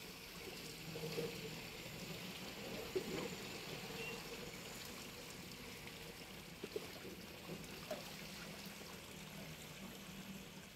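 Water pouring and trickling into a plastic tub of rice soaking in water, with a few light splashes.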